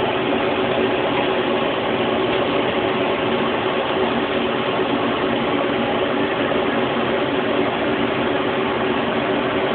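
Dual blower fans of a wood-burning fireplace insert running steadily: an even rush of air with a steady hum.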